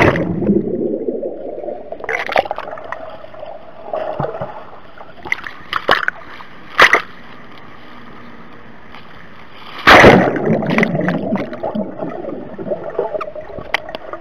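Pool water splashing and bubbling around a submerged GoPro camera. A loud splash as it plunges under is followed by muffled underwater gurgling. A few knocks follow, and about ten seconds in there is a second loud splash and rush of bubbles as it goes under again.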